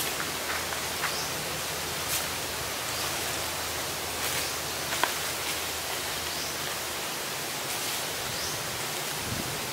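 Steady outdoor hiss with a few faint clicks, the sharpest about five seconds in, and scattered short high chirps.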